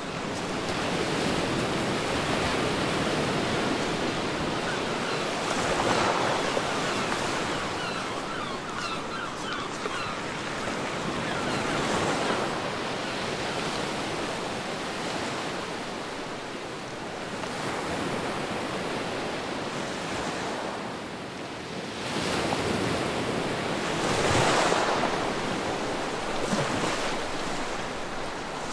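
Sea waves breaking and washing on a beach, the surf swelling to a louder crash every several seconds and easing off between.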